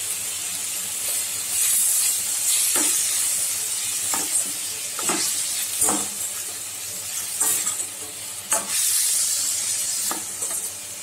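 Finely chopped vegetables sautéing in a stainless steel kadai with a steady sizzle, while a perforated metal spoon stirs them and scrapes and clinks against the pan about once a second.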